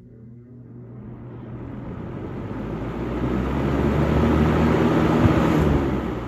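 First-generation Lakewood box fan, rebadged for JCPenney, spinning up on high speed: its motor hum and the rush of air from the blades build steadily for about four seconds, then the level drops near the end.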